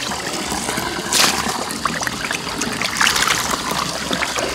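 Water pouring in a steady trickle into a metal basin of fish, with louder splashes about a second in and again about three seconds in as the fish are worked by hand in the water.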